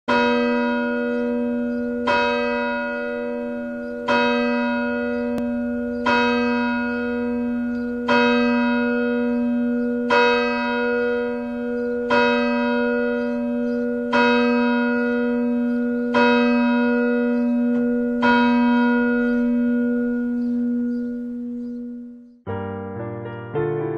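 A single church bell tolling, ten strokes about two seconds apart on the same note, each ringing on into the next. Near the end the bell cuts off and piano music begins.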